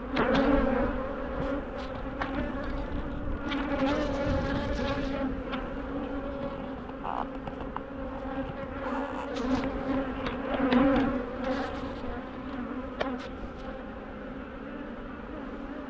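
Honeybees buzzing around an open hive: a steady hum that swells louder about half a second in and again near eleven seconds, with a few light clicks.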